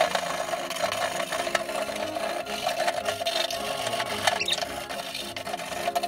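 Wire brush scrubbing the soapy stainless steel drum of a Samsung top-loading washing machine around its flange: quick back-and-forth scraping strokes of wire bristles on wet metal.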